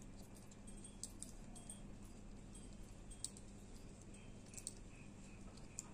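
Faint, scattered metallic clicks and clinks from a folding bicycle multi-tool as its hex key is handled and fitted to a bolt on a folding bike's handlepost hinge clamp, over a steady low hum.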